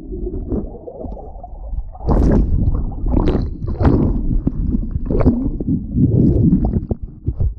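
Water and bubbles rushing around an action camera held underwater, heard muffled and dull. About two seconds in it turns louder and more splashy, with irregular crackles of water and bubbles against the camera near the surface.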